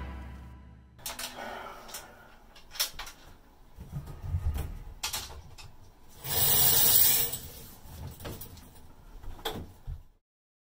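Handling noise after the last note of music fades: scattered faint clicks and knocks and a louder rustle about six seconds in, as someone moves about and reaches for the recording camera. The sound cuts off suddenly near the end.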